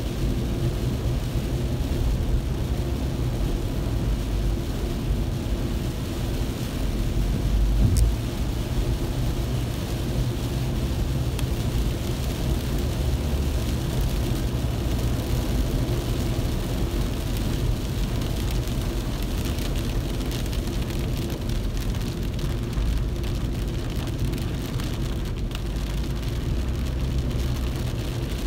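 A car driving in rain: a steady low rumble of engine and road with an even hiss of rain and wet tyres. A single thump about eight seconds in.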